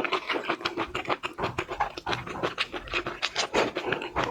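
Close-miked eating of seafood: wet chewing, lip smacks and sucking, with a dense, irregular run of quick clicks and crackles.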